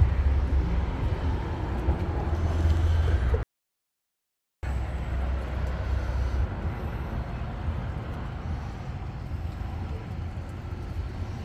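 Outdoor street traffic with a steady low vehicle rumble. The sound cuts out completely for about a second, a little over three seconds in, then the traffic noise resumes and eases off.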